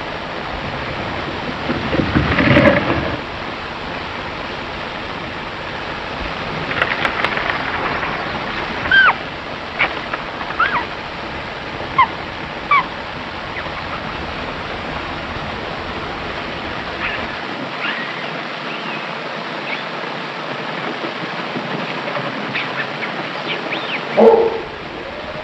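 Steady heavy hiss of an early sound-film soundtrack, with a louder creak about two seconds in and a scatter of short, high squeaks in the middle; another louder sound comes near the end.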